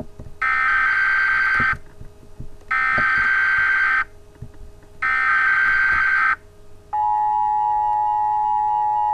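Emergency Alert System header: three bursts of warbling digital data tones, each just over a second long with a second of quiet between them. About seven seconds in, the steady two-tone EAS attention signal starts.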